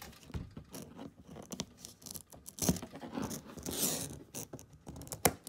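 AA batteries being handled and pressed into a plastic two-AA battery holder: scattered scrapes and clicks, with a few sharper knocks.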